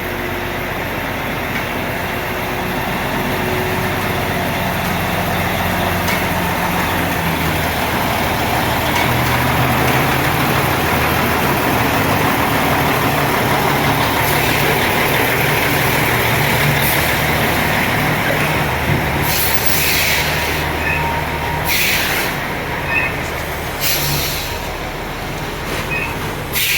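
Heavy truck's diesel engine running steadily at low speed while the truck is parked, with several short hisses of released air, typical of air brakes, in the last seven seconds or so.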